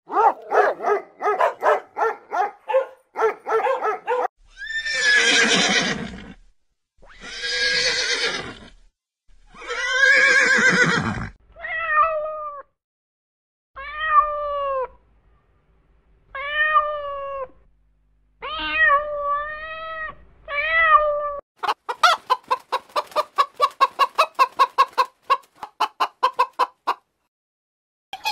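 A run of different animal calls. It opens with quick pulsed cries, then three long harsh cries, then a domestic cat meowing about six times, each meow rising and falling. Near the end comes a fast run of clucking calls.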